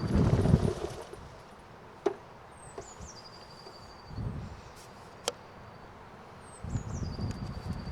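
A small songbird sings the same short phrase three times, each a quick falling note run into a high, even trill about a second long. Low rumbling gusts of wind on the microphone come and go in between, the strongest at the start, with a couple of sharp ticks.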